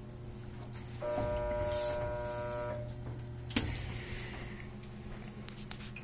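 Hobart commercial dishwasher running with a steady low hum. About a second in, a buzzing tone sounds for nearly two seconds. Midway through comes a sharp click, then a hissing rush of water that fades away.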